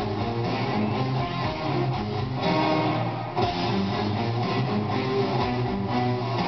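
Symphonic rock band playing live at full concert volume, electric guitars to the fore, heard from among the arena audience.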